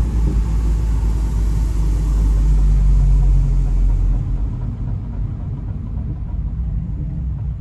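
Low rumble of road and wind noise inside a VW Jetta driving with its windows open. The hiss fades about four seconds in as the car slows. Within it is the brake noise the owner is trying to record, a fault the car has had since a curb impact.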